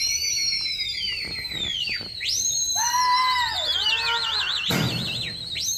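Several people whistling to a flying pigeon flock, with overlapping high whistles that swoop up and down, a warbling trill in the middle and lower drawn-out calls. There is a short loud noisy burst near the end.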